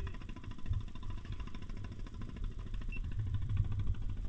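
Small wooden fishing boat's engine running at idle: a low, steady rumble with a fast, even pulse.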